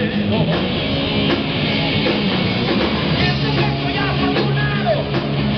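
Live heavy rock band playing loud: electric guitars, bass guitar and drum kit, amplified through stage speakers.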